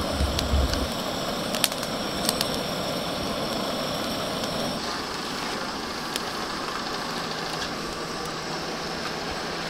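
Steady road and engine noise from inside a moving car: an even rush with a low hum and a few sharp ticks.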